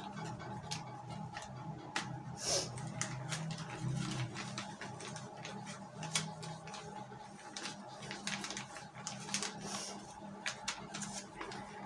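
Clear plastic zip-lock bag crinkling as it is handled, with many small sharp clicks as the zip track is pressed shut. A faint steady hum runs underneath.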